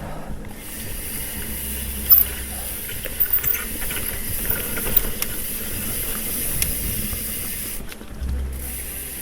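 Trek Fuel EX mountain bike descending a dirt trail: a steady rush of tyre and wind noise, with a few sharp knocks from the bike over bumps about two, three and five seconds in.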